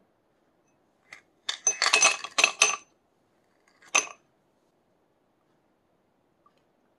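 Ice cubes dropped into a drinking glass, clinking against the glass: a quick run of sharp clinks lasting about a second and a half, then one more clink about four seconds in.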